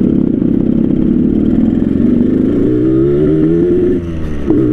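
Yamaha RX King two-stroke motorcycle engine running under throttle through its "ngorok" split exhaust, a rough rumble at first that turns into a clear, slightly climbing engine tone. The sound dips briefly about four seconds in and then picks up again.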